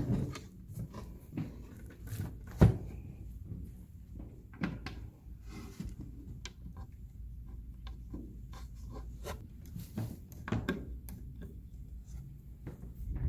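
Wooden dollhouse panels being handled and screwed together: scattered knocks, clicks and scrapes, with one sharp loud knock about two and a half seconds in.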